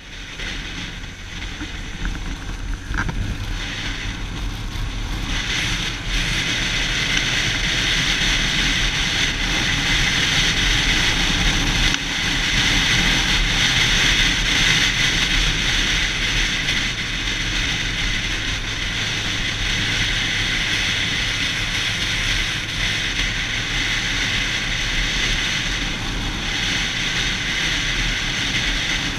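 Yamaha YZF-R6 sport bike's inline-four engine running at road speed under a steady rush of wind noise on a helmet-mounted camera, growing louder over the first several seconds and then holding steady.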